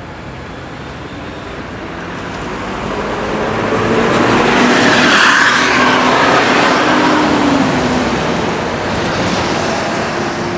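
A bus passing close by: engine and tyre noise swells over about four seconds, peaks about five seconds in, then slowly fades as it moves away.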